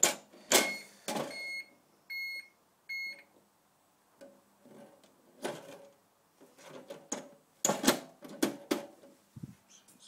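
Knocks and clatter as a Gent Xenex fire alarm panel's cover is handled and opened, loudest at about half a second and about eight seconds in. Three short high beeps about 0.7 s apart come between about one and three seconds in, most likely from the panel's internal buzzer.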